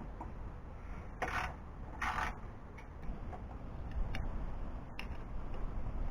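Ratchet with a 10mm socket backing out the hood latch bolts: two short bursts of ratcheting, then a few single clicks.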